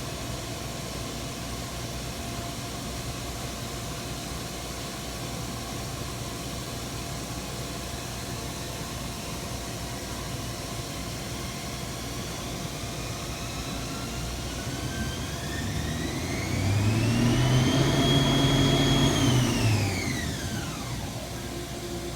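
Milling machine running with a steady hum; about halfway through, its spindle whine climbs steadily in pitch, holds at top speed for a moment while growing louder, then drops away quickly as the spindle slows.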